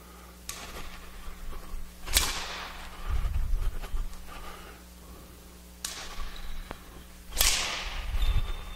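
A badminton racket swishing through the air in repeated backhand demonstration swings, about four times, with the dull thud of a foot landing on the court floor after the lunges.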